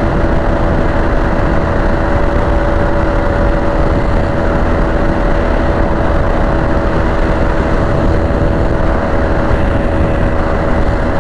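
Bajaj Pulsar RS200's single-cylinder engine running at a steady cruising speed, its hum held at one pitch without revving, under loud rushing wind on the rider's microphone.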